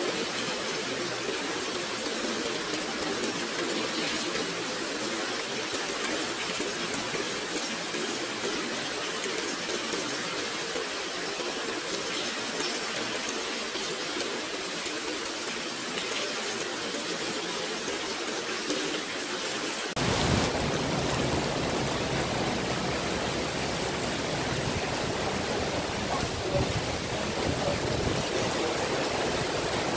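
Heavy rain pouring down onto paving, a steady hiss. About twenty seconds in it suddenly grows louder and deeper.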